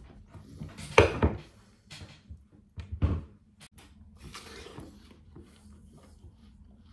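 A slice of watermelon being eaten close to the microphone: two loud bites about two seconds apart, then quieter chewing with small mouth clicks.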